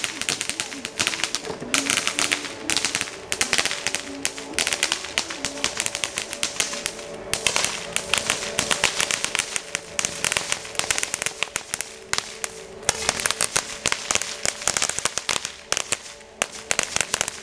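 Small firework lying on the pavement, crackling with a rapid, continuous run of small pops and sparks, easing off briefly a few times before picking up again.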